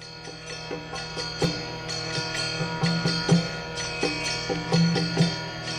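Instrumental music: plucked string notes over a steady drone.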